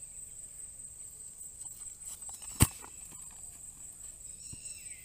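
A steady high-pitched insect drone with faint outdoor ambience. One sharp knock comes about two and a half seconds in, and a few short bird chirps come near the end.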